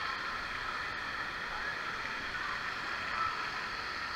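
Steady din of an indoor water park hall: running and splashing water mixed with many distant voices.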